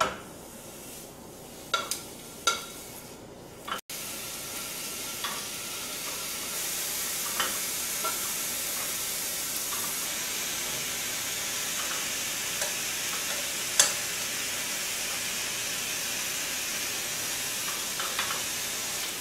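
Strips of raw pork belly sizzling in a hot frying pan. After a few light clicks of tongs, the sizzle starts suddenly about four seconds in and runs steadily, with occasional clicks of the tongs against the pan.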